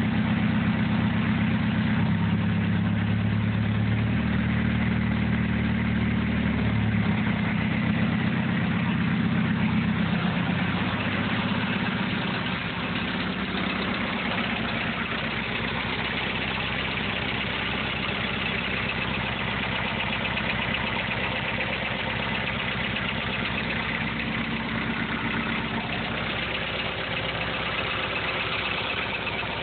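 VW 1.6 turbodiesel engine idling with a ticking from a valve lifter. The deep engine note is strong at first and drops away about twelve seconds in, leaving the higher mechanical clatter.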